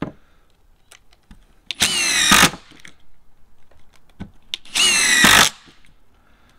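Ryobi P239 18V brushless cordless impact driver running at full speed as it drives screws into a wooden board, in two short bursts about three seconds apart. Light clicks of screws being handled fall between the bursts.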